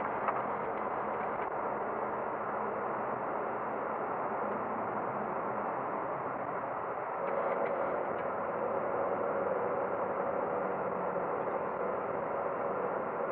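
Steady rush of engine and airflow noise heard inside a Boeing 737-800 cockpit at takeoff and initial climb. About seven seconds in, a steady hum comes in and the noise grows slightly louder.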